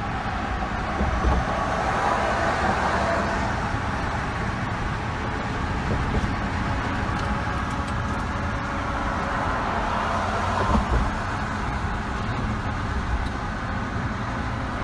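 Car running, with steady engine and road rumble heard from inside the car.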